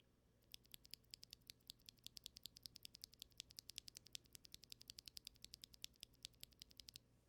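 Mechanical keyboard fitted with stock Strawberry Milk tactile switches being typed on for a sound test: a faint, quick run of key clicks that grows denser, several keystrokes a second.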